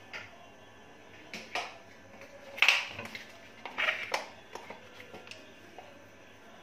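Hands handling and pressing soft bun dough on a plate: a few short, soft rustles and taps, the loudest about two and a half seconds in, over a faint steady hum.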